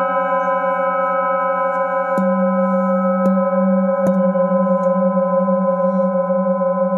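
Metal singing bowl ringing with a steady, many-overtoned tone and a slow pulsing wobble in its low note, struck with a mallet three times, a little over two, three and four seconds in.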